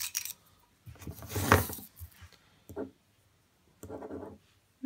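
Handling noises from an aluminium tactical pen being put back together and uncapped: a click at the start and a louder rustle about a second and a half in. Near the end comes a short scratching of the pen tip on paper as writing begins.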